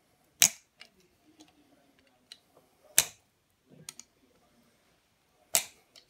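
Slip-joint (channel-lock) pliers clicking as they grip the cut dielectric on RG213 coax and are worked side to side: three sharp clicks about two and a half seconds apart, with fainter ticks in between.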